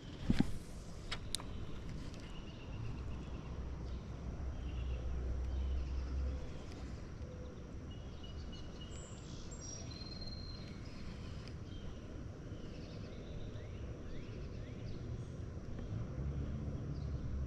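Outdoor creek ambience: faint, scattered bird chirps over a low rumble that swells for a few seconds early on and again near the end. A sharp click sounds just after the start, and a lighter one about a second in.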